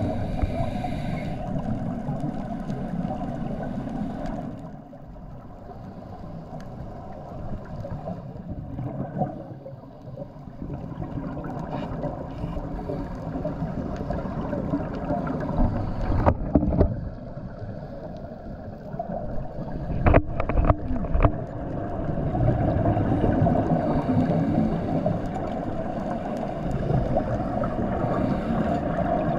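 Underwater sound of a scuba diver breathing through a regulator: a rush of exhaled bubbles that swells and fades in slow cycles several seconds apart, muffled by the camera housing. A few sharp clicks come about halfway through.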